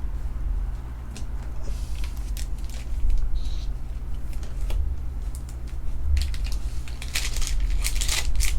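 Trading-card packs and cards being handled: scattered crinkling of foil pack wrappers and light clicks of cards, growing busier near the end, over a steady low hum.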